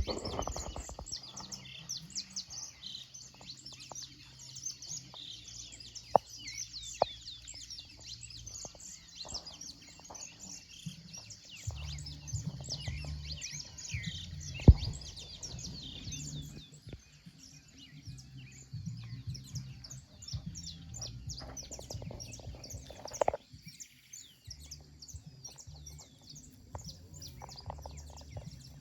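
Many birds chirping at once in a dense, continuous chatter, with a few sharp clicks and a low rumble coming and going underneath.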